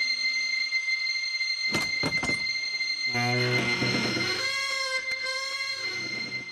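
A few sharp knocks on a heavy wooden door about two seconds in, then the door creaking slowly open in one long, wavering creak.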